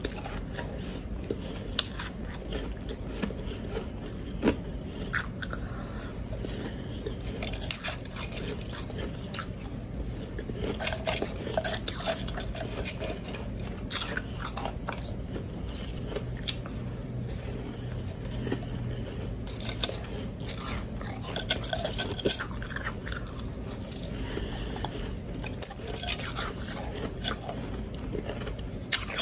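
Close-up biting and chewing of powdery blender-crushed ice, with irregular crunches throughout.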